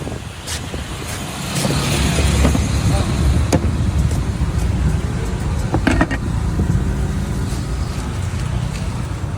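Steady rumble of street traffic with motor vehicles running close by, and a few sharp knocks, the clearest about three and a half and six seconds in.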